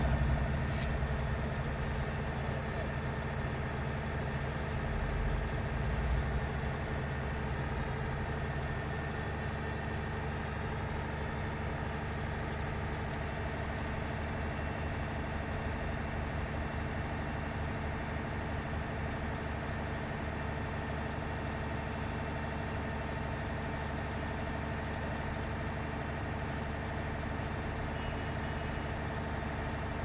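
Diesel engine of a 46 m truck-mounted boom concrete pump running steadily at a constant pitch while the boom moves, a little louder in the first few seconds.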